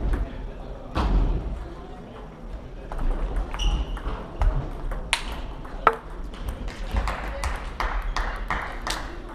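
Celluloid-type table tennis balls clicking sharply off bats and tables, a rally's strokes mixed with the clicks of play at neighbouring tables, densest in the second half, over the chatter of voices in the hall.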